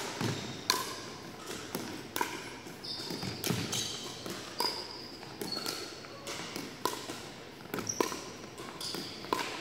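Pickleball rally: paddles hitting the hollow plastic ball in a quick back-and-forth, a string of sharp pops about one a second or faster. Short high sneaker squeaks on the hardwood court come in between the hits.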